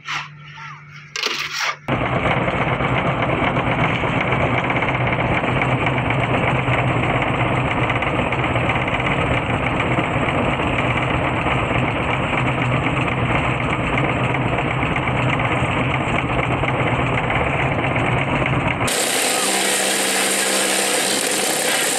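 Concrete tile-making machinery running: the vibrating table under the steel roof-tile mould and the concrete mixer make a loud, continuous rattling hum. About 19 seconds in, the sound changes abruptly to a brighter, hissier running noise without the low hum.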